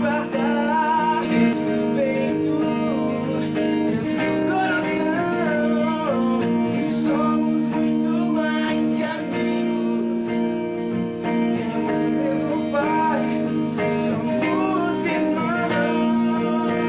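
Pop-rock band music: guitar chords held and strummed, with a singing voice over them.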